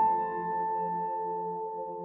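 Background music: a single struck note rings on and slowly fades, with soft lower notes beneath it.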